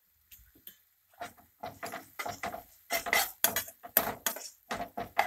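Slotted nylon spatula scraping and knocking against a nonstick frying pan as it stirs onion-tomato masala in quick repeated strokes, getting louder about three seconds in.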